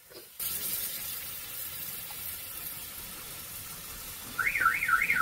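Masala sizzling steadily in a hot pan. From about four seconds in, an electronic alarm starts a warbling tone that sweeps up and down several times a second, louder than the sizzle.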